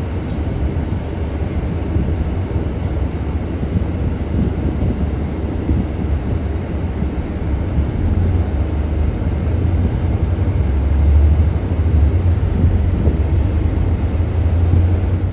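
Airbus A380 airliner's four jet engines rumbling steadily as it taxis, growing somewhat louder a little over halfway through.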